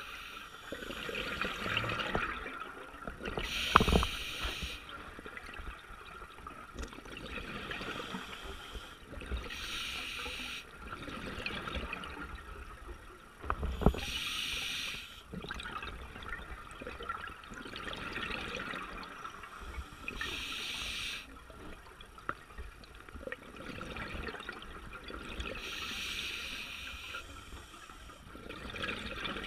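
Scuba diver breathing through a regulator underwater: a short hissing inhale about every five to six seconds, with bubbling exhales in between. Two sharp knocks come about four and fourteen seconds in.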